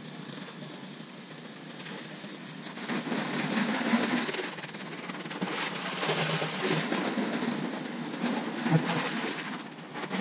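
Garden hose spray nozzle rinsing a car: a steady hiss of water spraying and spattering on the car's body and the driveway, easing off for a moment near the end.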